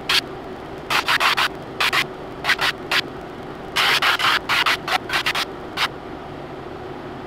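A drum sander runs with a steady hum. A laminated wooden kayak paddle blade is pressed by hand against the spinning sandpaper drum in quick repeated touches, giving clusters of short, harsh rasps. The rasps stop about six seconds in, leaving only the machine running.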